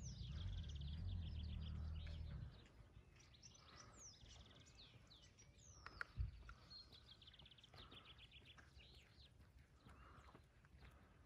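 Songbirds singing and calling, with fast trills and downward-sweeping whistles. A low rumble runs under them for the first two and a half seconds, then stops, and there is a single sharp click about six seconds in.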